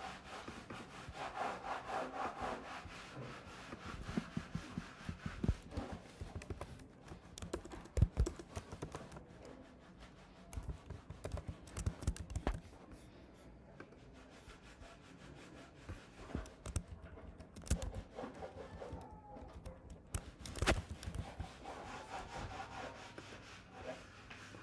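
Typing on a computer keyboard and clicking, irregular key taps and clicks with a few louder strokes, while code is edited.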